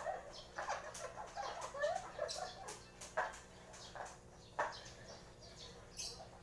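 A parrot making soft, low chatter and small wavering chirps, with scattered sharp clicks now and then.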